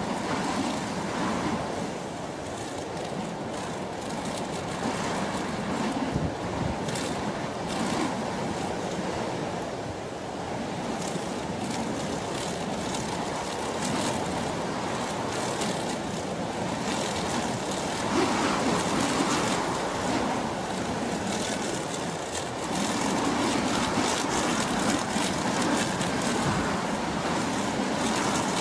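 Airliner noise: a steady rushing of engines and airflow with no distinct tones, growing a little louder about two-thirds of the way through.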